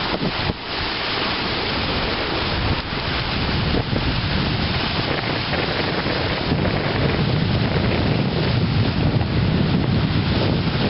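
Wind buffeting the microphone over sea waves washing against the rocks of a breakwater, a steady loud rush.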